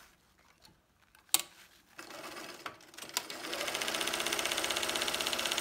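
Domestic electric sewing machine starting to stitch about three seconds in and then running at a steady speed, its needle giving a rapid, even rhythm as it sews a tuck in a strip of fabric. A single sharp click comes a little over a second in, before the machine starts.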